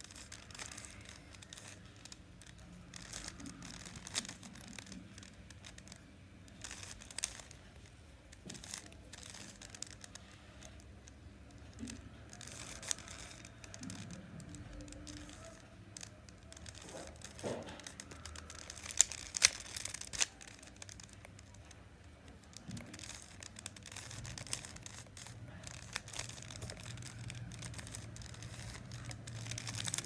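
A plastic 3x3 Rubik's cube being turned by hand, its layers clicking and scraping in quick, irregular runs as it is solved. A few louder clacks come a little past the middle.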